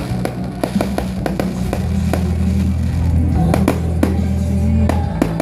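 Aerial fireworks going off in a quick, irregular string of sharp bangs and crackles, several a second, over loud music with a heavy steady bass.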